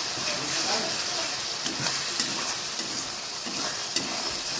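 Spice masala sizzling in hot oil in a kadhai while a spatula stirs it, scraping the pan with small clicks.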